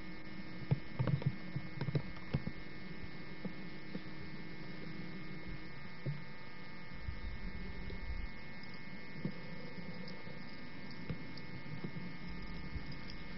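Steady electrical hum in the recording, several fixed tones held throughout, with a lower tone that drops out about halfway. A few light knocks come between about one and two and a half seconds in.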